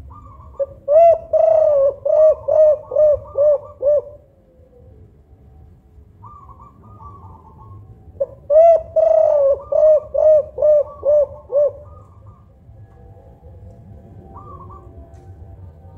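Spotted dove (tekukur) cooing: two bouts of about eight short, arched coos each, several seconds apart, with a third bout starting near the end. Softer, higher notes come in between bouts.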